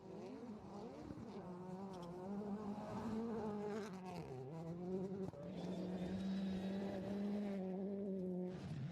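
Rally car engine running hard, its buzzing note rising and dipping with throttle and gear changes, with two sharp drops in pitch midway and then a few seconds held fairly steady before it falls away near the end.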